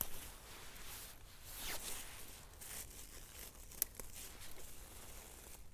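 Rustling and tearing of plants being handled by hand, with scattered crackles and one sharp snap about four seconds in.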